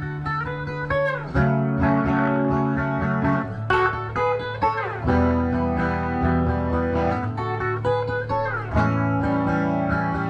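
Instrumental guitar passage from a song: guitars strummed and picked in chords, with a falling slide in pitch every few seconds.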